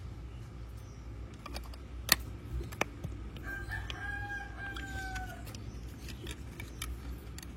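A rooster crowing: one call of about two seconds, held on one pitch and dipping slightly at the end. Before it come a couple of sharp plastic clicks from building-block pieces being handled, the first one the loudest sound.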